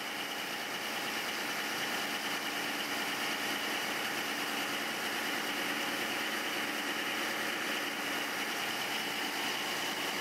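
Steady running noise of Caterpillar marine diesels in a superyacht engine room: a constant rush with a high whine laid over it.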